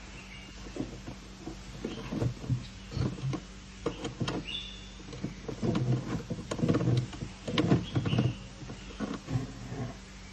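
A domestic hen leaping up into an apple tree's branches: irregular rustling of leaves and soft thumps, busier and louder in the second half, with a few short high chirps.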